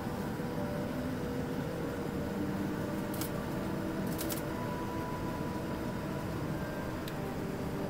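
Steady cabin noise of a jet airliner taxiing: the engines at idle and the hum of the cabin air, with a few faint steady tones and light clicks about three and four seconds in.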